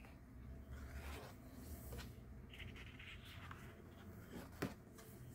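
Faint papery rubbing and sliding as large glossy photo postcards are handled and slid over one another, with one sharp tap a little after four and a half seconds in.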